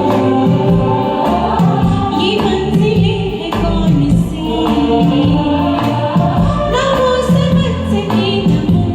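Karaoke performance of an old Hindi film song: a woman singing over a recorded orchestral backing track.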